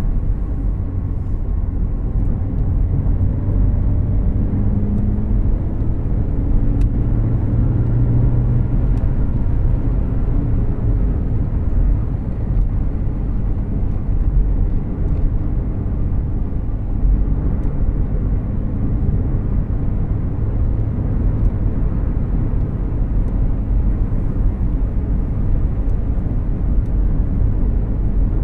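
Cabin noise of a moving 2014 Volkswagen Jetta Clásico: a steady low road-and-tyre rumble with the engine's hum, which strengthens and rises slightly in pitch a few seconds in before settling.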